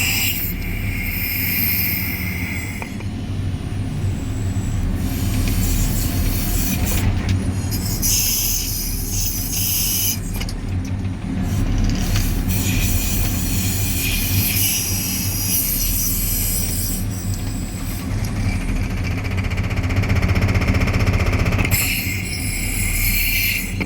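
JCB 3CX backhoe loader's four-cylinder diesel engine running steadily, with higher-pitched mechanical and hydraulic noise coming and going over it.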